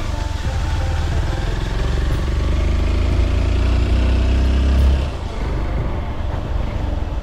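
Honda XR190L single-cylinder motorcycle engine running while riding, a steady deep rumble that eases off about five seconds in.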